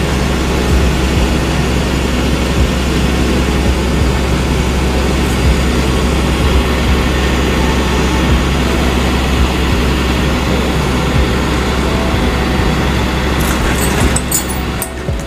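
Flatbed tow truck's engine running steadily, a low drone with a steady hum above it. Near the end it dips briefly, with a few sharp clicks.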